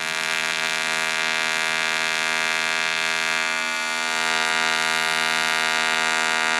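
AC TIG welding arc from a YesWelder CT2050 on an aluminium fuel tank: a steady electric buzz with many evenly spaced overtones, held without a break.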